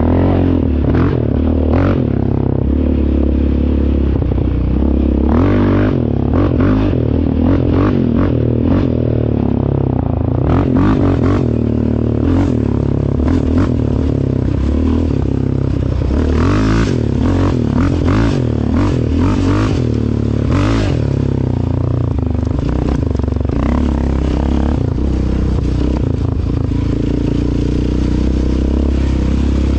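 ATV engine running under changing throttle, its pitch rising and falling, with repeated rattles and knocks as the quad bounces over a rough, rutted dirt track.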